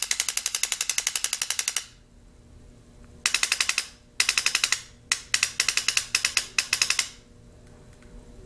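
Spyder RT electronic paintball marker firing in fully automatic mode: rapid strings of sharp shots, about ten a second. A long string comes first, then several shorter bursts with brief pauses between them.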